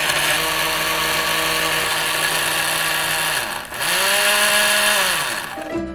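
Countertop blender grinding ginseng, milk and honey into a smooth liquid marinade. The motor runs steadily and winds down about three and a half seconds in. It then runs again in a short second burst that speeds up and slows to a stop near the end.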